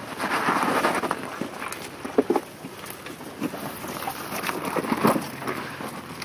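Jeep Wrangler JK crawling slowly over rocks: a low rumble of the vehicle with sharp knocks about two seconds in and again about five seconds in as tyres and suspension meet the rocks, with wind buffeting the microphone.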